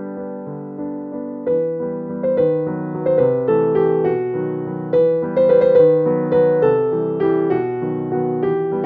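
Background piano music: a gentle tune of single struck notes, each fading away, growing fuller about a second and a half in.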